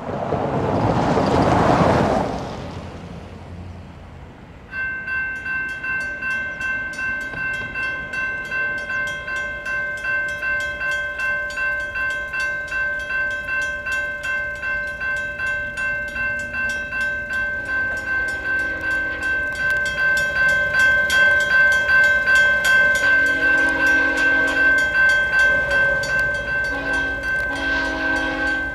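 A vehicle passes on the road in the first few seconds. About five seconds in, the railroad crossing signal's bells, one electronic and one mechanical, start ringing in rapid even strokes. From about two-thirds of the way through, an approaching Union Pacific freight locomotive's horn sounds the grade-crossing pattern: two long blasts, a short one, then a long one near the end.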